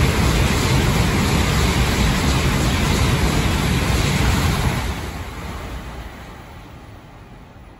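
N700S Shinkansen bullet train passing through a station at speed without stopping: a loud, steady rush of air and running noise. It begins to die away about five seconds in as the tail recedes.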